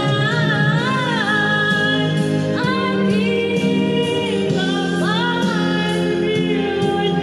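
A woman singing a slow ballad into a karaoke microphone over a backing track, holding long notes with vibrato and starting two new phrases partway through.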